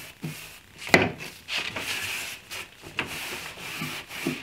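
A cloth rag rubbing over the wooden side of a cabinet, wiping off freshly brushed-on dark walnut stain. A sharp knock comes about a second in and a lighter one near three seconds.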